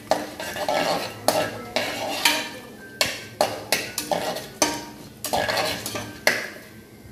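Slotted metal spatula scraping and clacking against an aluminium pressure-cooker pan in about a dozen uneven strokes, stirring whole spices and a bay leaf in hot ghee and oil, which sizzle lightly. The stirring stops near the end.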